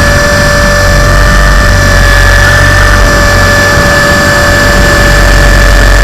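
Tarot 450 RC helicopter's electric brushless motor and drive gears giving a steady, high whine that holds its pitch, over rotor and wind rush, heard loud and close from a camera mounted on the helicopter.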